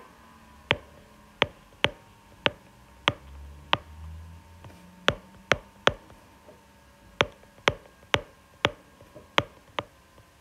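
Stylus tip tapping and clicking on a tablet's glass screen during handwriting: sharp, irregular clicks about two a second.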